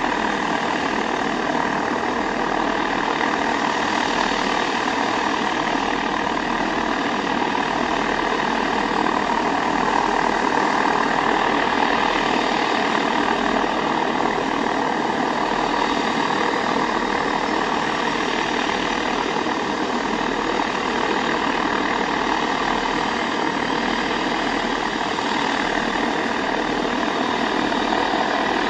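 Antonov An-22's Kuznetsov NK-12MA turboprop engines with contra-rotating propellers running steadily while the aircraft stands still, an even drone with a held whine.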